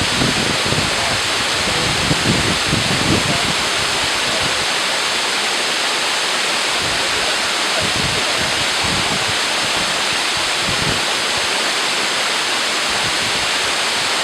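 Waterfall rushing, a loud, steady roar of falling water, with irregular low rumbles of wind on the microphone.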